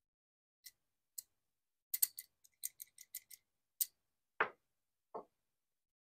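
Wooden toy sound cube with small beads threaded on a rod inside: the beads click against each other and the wood as the cube is tilted, a dozen or so sharp irregular clicks. Then two dull wooden knocks as the block is set down on the stack.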